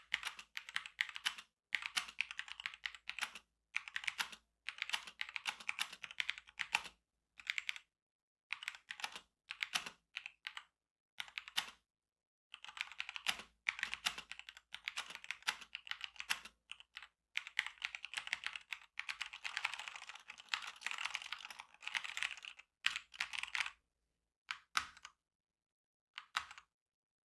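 Typing on a Motospeed CK67 mechanical keyboard: fast runs of key clicks in bursts of a few seconds with short pauses between, stopping shortly before the end.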